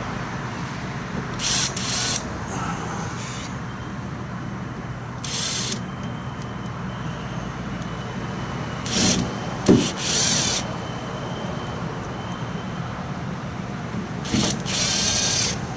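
Mounting screws being driven in to fix a port plug to a van's body: several short bursts of scraping screw-driving noise, in three or four groups, over a steady low hum.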